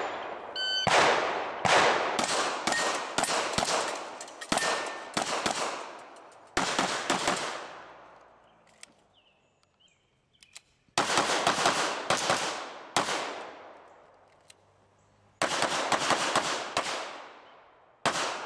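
Rapid handgun fire from a CZ pistol: strings of quick, closely spaced shots, with a quiet gap of about three seconds in the middle and two more strings after it.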